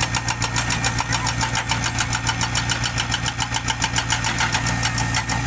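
Heavy diesel construction machine running with a steady low hum, over a fast, even metallic clatter of about eight clicks a second that stops just before the end.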